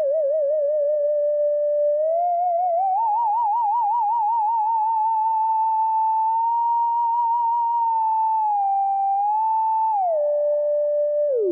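Arturia JUN-6V software synthesizer, an emulation of the Roland Juno-6, playing its "Sine Wave" preset as a single pure tone that glides between pitches with bursts of vibrato. The pitch slides up about two seconds in and holds, dips briefly and comes back, then steps down twice near the end.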